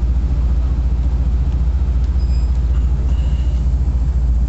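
Copper Canyon passenger train running, heard from on board: a steady low rumble.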